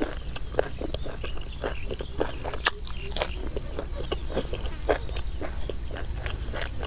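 A person chewing food close to the microphone, with many irregular wet clicks and crunches, the sharpest about two and a half seconds in. Behind it an insect chirps steadily, a high pulse about five times a second.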